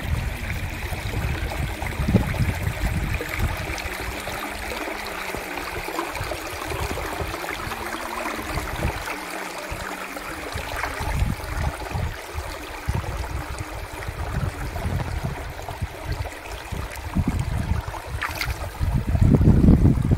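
Shallow water flowing and trickling over rocks, with an irregular low rumble of wind on the microphone that swells near the end. A brief click comes just before the end.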